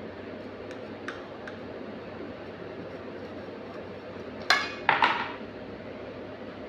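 Two sharp clatters of tableware knocking against a plate about four and a half seconds in, the second ringing briefly, after a few faint ticks, over a steady background hiss.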